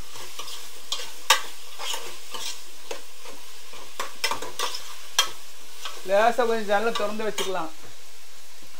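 Onions frying in oil and ghee in a pot, sizzling steadily, with a spoon clicking and scraping against the pot as they are stirred. A voice is heard briefly about six seconds in.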